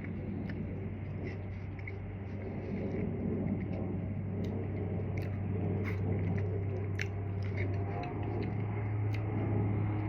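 Biting and chewing a frozen strawberry popsicle bar: scattered short, sharp crunches of teeth on ice, over a steady low hum.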